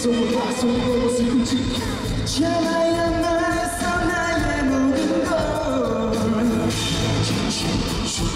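Live K-pop music with singing at a concert, a held melody line running through the middle.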